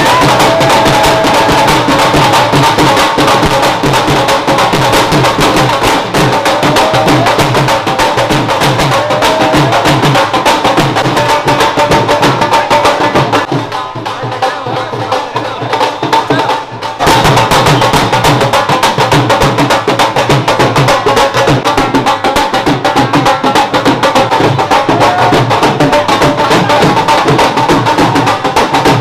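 Loud music with a fast, steady percussion beat over a pitched melody; it dips for a few seconds midway and comes back in suddenly.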